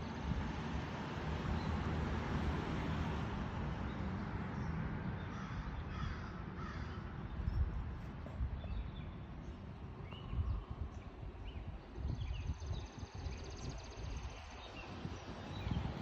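Crows cawing, in scattered calls, over a steady low rumble of outdoor background noise.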